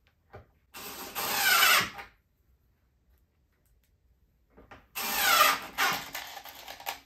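DeWalt cordless drill-driver driving screws into a cabinet's bottom panel: two runs of a little over a second and about two seconds, the motor's whine falling in pitch during each run.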